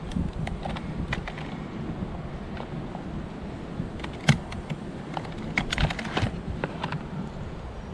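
Irregular light clicks and small metal rattles from a coil roofing nailer being handled while a coil of nails is seated in its magazine, with one sharper snap about four seconds in and a quick run of clicks shortly after. A low wind rumble on the microphone runs underneath.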